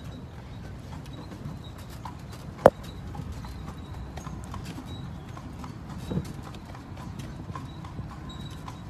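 Horse hooves clip-clopping on pavement, as from a horse-drawn carriage moving along, over a steady low rumble. A single sharp knock about two and a half seconds in is the loudest sound.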